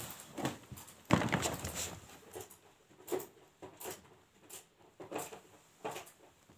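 Footsteps on a hard floor, about one and a half steps a second, after a louder scuffing noise about a second in.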